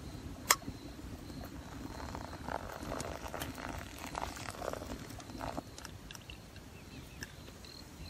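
Hot water pouring quietly from a Ghillie chimney kettle into a paper-filtered pour-over coffee dripper, with one sharp click about half a second in.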